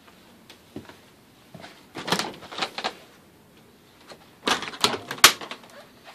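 RV refrigerator door being unlatched and swung open, with a series of sharp plastic clacks and knocks from the latch, door and shelves: one cluster about two seconds in and another from about four and a half seconds in.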